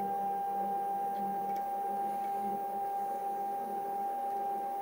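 Axis drive of a DIY CNC lathe traversing at a steady speed: an even motor whine as the carriage with the collet holder moves along the bed.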